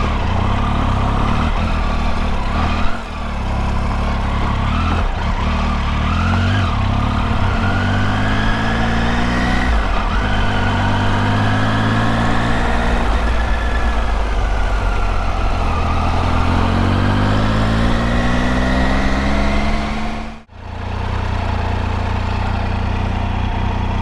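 Triumph Tiger 800's inline-three engine heard from the rider's seat while riding, its pitch climbing and falling several times as it revs up and changes gear. The sound drops out suddenly for a moment about twenty seconds in.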